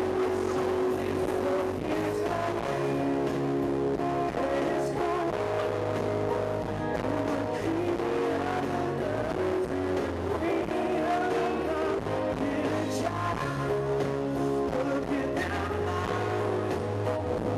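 Live band music with singing, amplified over an outdoor concert sound system, with a steady bass line under held notes.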